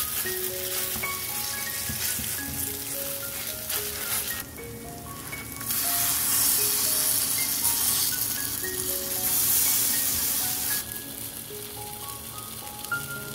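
Tofu-banana cheesecake batter frying in oil in a hot pan, sizzling in two stretches: a short break about four seconds in, then a louder stretch that stops near the end.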